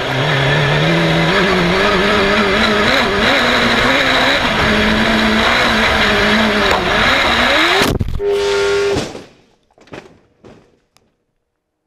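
Suzuki GSX-R1000 inline-four motorcycle engine in a sand-rail minibuggy running hard, its pitch rising and falling with the throttle and climbing sharply about eight seconds in. A sudden loud impact follows as the buggy crashes. The engine holds a steady high note for about a second and then cuts out, followed by a few knocks and then silence.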